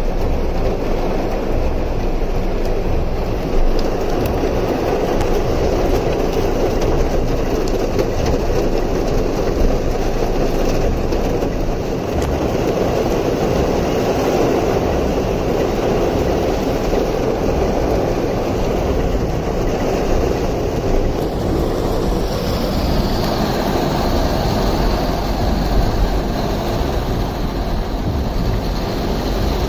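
Heavy monsoon rain pouring down and floodwater rushing along a flooded street, a loud, steady noise.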